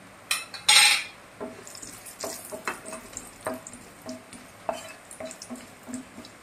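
Spatula stirring whole spices in hot oil in a nonstick frying pan: repeated short scrapes and taps on the pan over a faint sizzle. A short loud burst comes about a second in.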